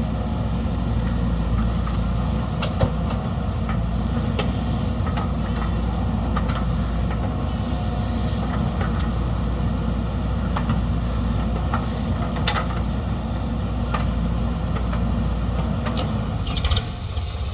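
Diesel engine of a JCB backhoe loader running steadily at work, with scattered sharp knocks; a brief louder burst near the end, after which the engine sound eases a little.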